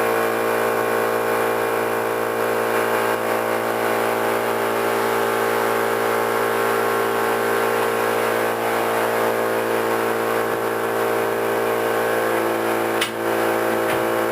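Tire-shop machinery running with a steady, loud hum of several fixed tones that does not change. A single sharp clank near the end.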